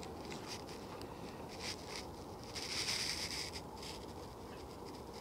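Faint rustling and scratching of a thin line being worked by hand through old, stiff rope with a leather sail palm. There is a cluster of soft scratches around the middle.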